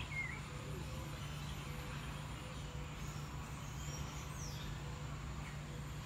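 Aviary ambience: a short falling bird chirp just after the start and a few faint high, thin bird calls around the middle, over a steady low hum.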